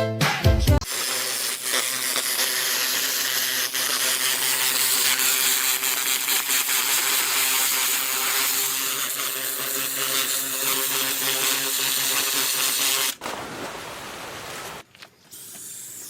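A power tool or motor-driven machine running steadily with a harsh, high grinding noise over a steady hum. It cuts off sharply about thirteen seconds in, followed by a quieter noise for a second or two.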